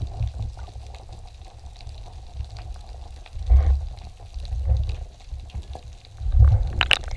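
Underwater water noise, muffled: a low rumbling rush that swells in a few irregular surges, with a few sharp clicks near the end.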